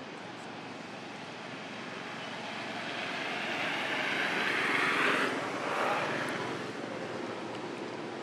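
A passing engine whose noise swells slowly, peaks about five seconds in, then fades away.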